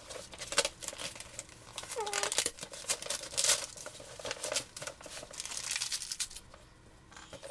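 Package wrapping crinkling and tearing as it is pulled open by hand, in rapid irregular crackles that die down about six and a half seconds in.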